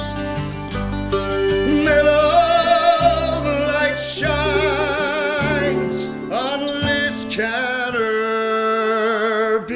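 Acoustic folk trio of mandolin, acoustic guitar and button accordion playing a slow song. From about two seconds in, a voice sings long held notes with vibrato over the chords.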